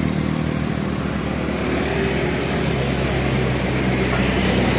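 Bus engine running, a steady low drone with a slight change in its note about three seconds in.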